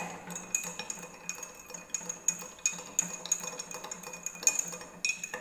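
Metal spoon stirring lemon juice in a glass mug, clinking against the glass in a steady run of light ticks, about three a second.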